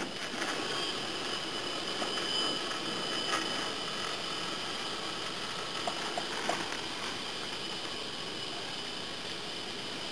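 Sliding-door automation drive running: a steady electric whine with several high tones over a hiss, easing off slightly, with a few light clicks in the middle.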